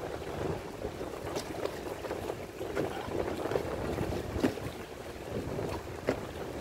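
Water sloshing, with wind noise on the microphone and a few scattered light clicks.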